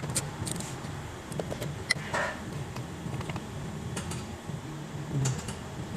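Scattered light clicks and metal clinks of hand tools being worked around the engine, over a steady low hum.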